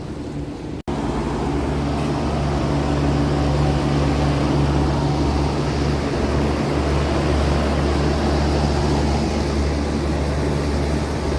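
Outdoor heat pump unit running: a steady low compressor hum with a fan whooshing over it. There is a brief cut-out about a second in, and the hum is louder after it.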